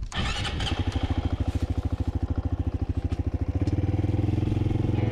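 Honda CT125's single-cylinder four-stroke engine firing up and settling into a steady idle, with rapid, even exhaust pulses.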